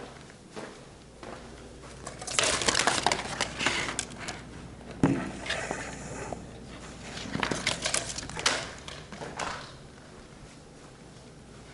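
Rustling and clattering handling noises from someone moving about a room, in two bursts, with a single sharp knock about five seconds in.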